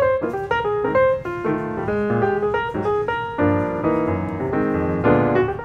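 Background music: solo piano playing a quick run of notes.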